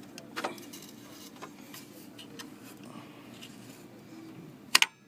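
Small plastic ticks and taps of fingers working the RAM slot's retaining latches on a desktop motherboard, then a sharp click near the end as a latch lets go and the memory module pops up.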